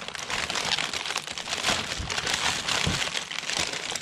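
Packaging crinkling and rustling continuously as an ice fishing rod is unwrapped, with a couple of dull thumps about two and three seconds in.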